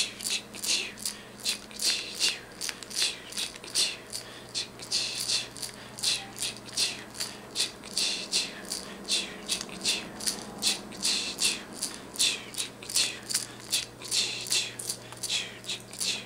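A parent shushing a baby with rhythmic "shh" sounds, about three a second and varying in strength, to soothe him to sleep.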